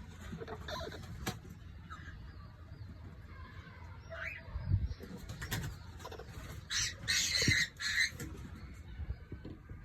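Pet cockatiels calling, with a short rising chirp about four seconds in and a cluster of loud, harsh bursts a little before the end.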